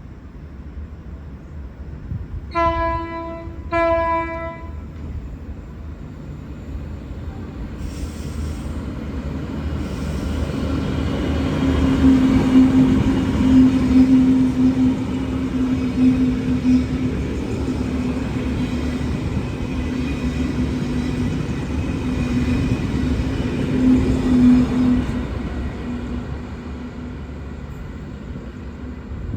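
Two short blasts of a V/Line VLocity diesel railcar's low-note horn. Then the coupled VLocity sets run through the station with rising rumble, rail noise and a steady low hum. It is loudest around the middle and fades near the end.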